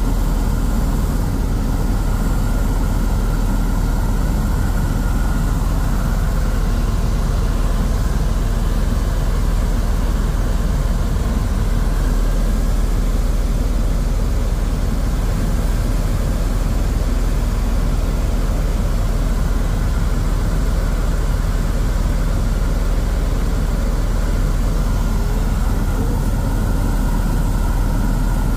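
Helicopter in flight, a steady loud drone of engine and rotor that is heaviest in the low end and holds even throughout.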